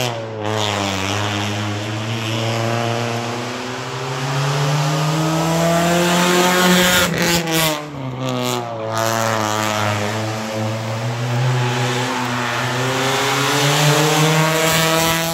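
Rally car engine driven hard uphill, its pitch climbing under acceleration and dropping back at gear changes and lift-offs, growing louder as the car approaches and passes close by. A few sharp cracks break in about seven to nine seconds in, as the engine comes off the throttle.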